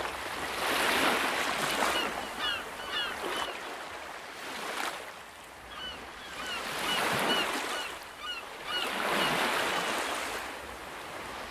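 Ocean surf, with waves breaking and washing in repeated surges, and two flurries of short, high bird calls over it.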